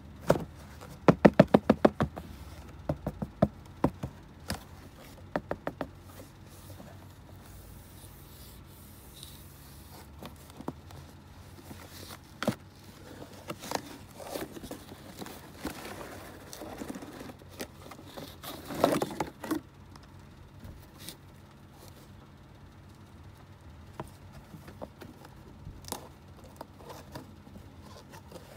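Handling of a cardboard toy box and plastic toy soldiers. It opens with a quick run of sharp knocks, then gives way to scattered knocks, scrapes and a brief rustle.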